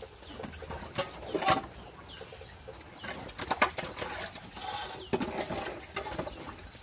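Chickens clucking and other birds calling, in short separate calls, with small clicks and tearing of banana peels being cut with a knife and stripped by hand.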